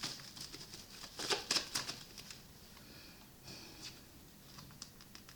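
Tarot cards being handled, with light rustling and a few soft slaps, busiest about a second in.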